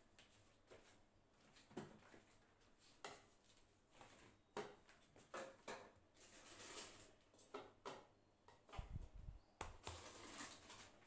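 Faint scattered taps and soft rubbing of a hand patting and pressing a ball of dough flat on a kitchen countertop, with a brief low thump about nine seconds in.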